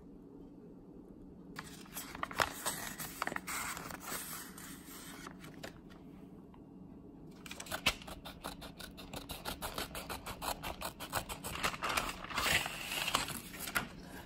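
Scissors cutting through paper envelopes: rapid crisp snips with paper crinkling, in two bouts, the first starting about a second and a half in and the second, denser one from about 8 s, with a short pause between.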